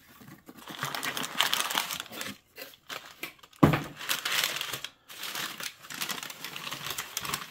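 Brown kraft packing paper crinkling and rustling as it is handled and pulled open, in irregular bursts with short pauses. About halfway through, a single sharp thump, the loudest sound, as the wrapped parcel is set down.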